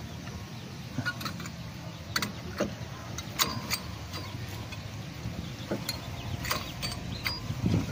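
Scattered light metallic clicks and clinks as a new brake pad is worked by hand into a car's front brake caliper bracket, over a low steady hum.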